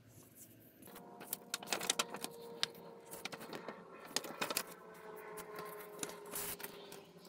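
Paper rustling and crinkling, with many quick crackles and taps, as a large folded paper poster is handled and unfolded. It starts about a second in and keeps on unevenly until near the end.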